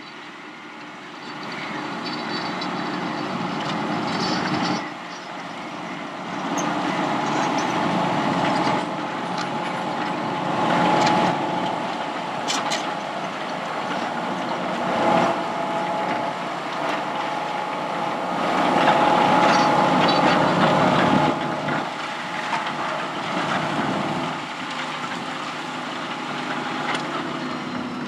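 Fendt 720 tractor engine running under load while pulling a Kverneland plough, a steady drone that swells and eases, loudest about two-thirds of the way through.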